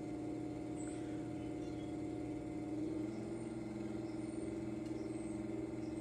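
Electric potter's wheel spinning, its motor humming steadily; the hum shifts slightly in pitch about three seconds in.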